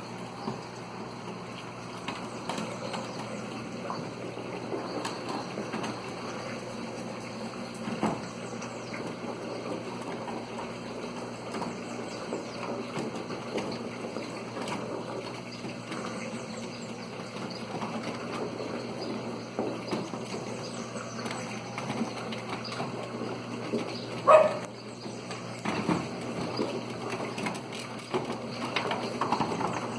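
Black vultures scuffling on a corrugated fibre-cement roof: wings flapping and bodies and feet scraping on the roof sheets, with scattered small knocks over a steady low hum. One loud short sound stands out about three-quarters of the way through.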